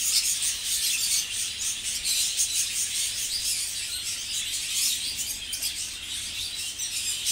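A flock of budgerigars chattering and chirping all at once, a dense continuous twitter, over a steady low hum.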